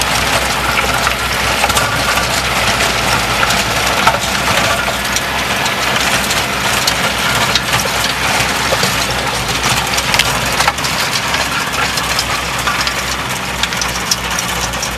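Kubota B2100 compact tractor's three-cylinder diesel running steadily under load while its rear rotary tiller churns through soil and stones, a loud continuous crunching and rattling with many small clicks over the engine hum.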